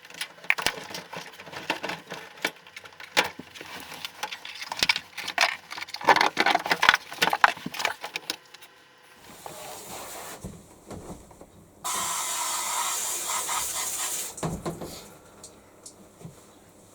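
Clatter and knocks of washing-machine parts being handled and moved, then a steady hiss lasting about two seconds near the end.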